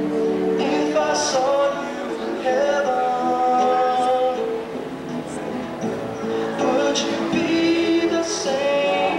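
A young man singing into a handheld microphone over music accompaniment, holding long notes.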